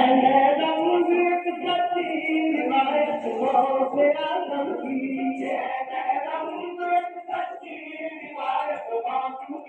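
Song with a group of voices singing together, choir-like.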